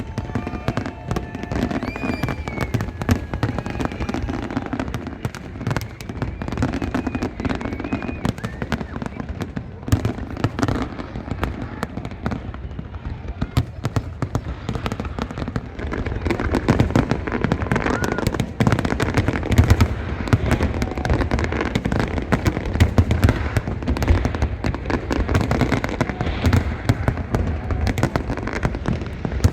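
Fireworks display: dense, rapid bangs and crackling, growing louder in the second half.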